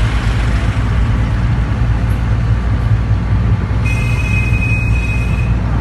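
Steady low rumble of engine and road noise inside a moving vehicle's cabin. About four seconds in, a steady high-pitched tone joins for nearly two seconds, then stops.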